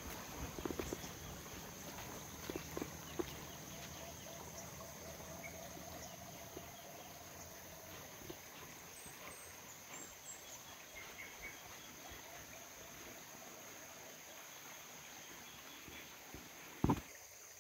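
Outdoor ambience with a steady high-pitched insect drone, a few light knocks in the first few seconds and one louder thump near the end.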